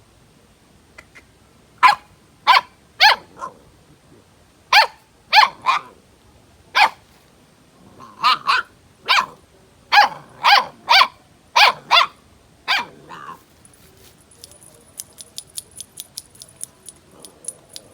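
A dog barking repeatedly, about eighteen sharp barks in quick bursts of two or three. Near the end comes a rapid run of light clicks.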